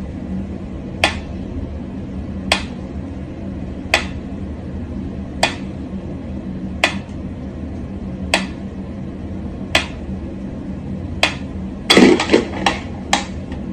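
Mechanical pyramid metronome ticking slowly and evenly, one tick about every second and a half. Near the end comes a louder thump with a few quick clicks after it.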